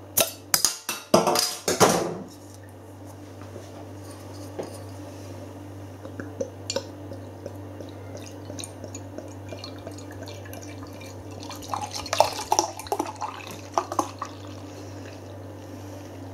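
A crown cap prised off a glass beer bottle with a metal bottle opener, a few sharp clicks and clinks in the first two seconds. Then beer is poured from the bottle into a pint glass, with faint trickling and fizzing, and louder splashing about twelve seconds in.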